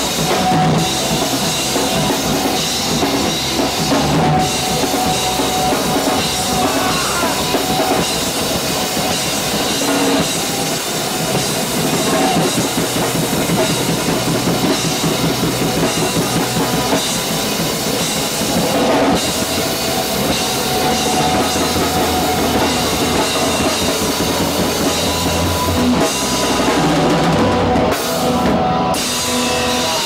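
Rock band playing loud live, with the drum kit close by and loudest: bass drum and cymbals over the rest of the band.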